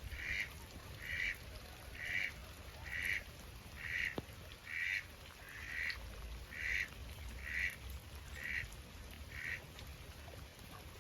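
A domestic duck quacking in a steady series, about eleven quacks at roughly one a second, stopping shortly before the end.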